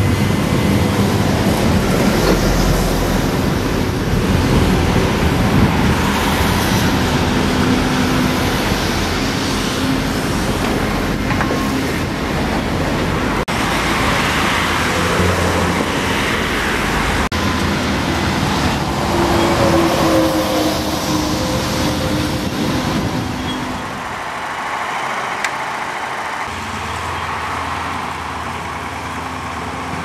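Crawler excavator at work, its diesel engine running steadily under load as it digs and swings, with the engine note rising and falling. About three-quarters of the way through the sound becomes quieter and lower.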